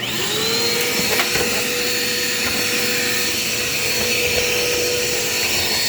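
Vacuum cleaner switching on, its motor whine rising for about half a second, then running steadily.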